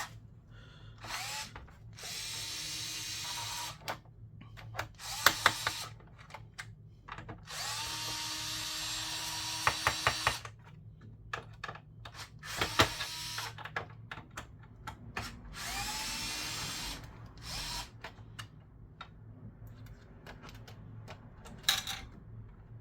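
Small electric screwdriver running in several short spells of one to two seconds, each starting with a brief rising whine, backing out four screws, with sharp clicks of metal between the spells.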